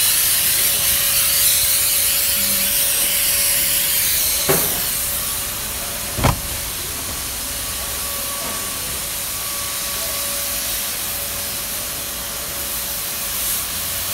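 Disinfectant sprayer hissing steadily, with a faint steady hum under it. There are two short knocks, about four and a half and six seconds in, the second the louder.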